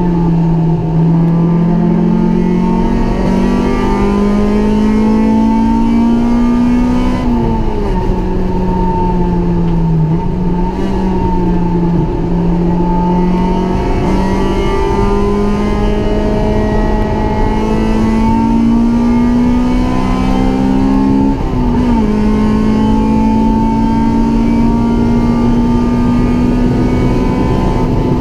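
Honda Civic EG6 SiR's B16A 1.6-litre VTEC four-cylinder engine under hard acceleration on track, heard from inside the stripped-out cabin. The engine note climbs steadily for long stretches, falls sharply about seven and twenty-one seconds in, and dips briefly around ten and twelve seconds.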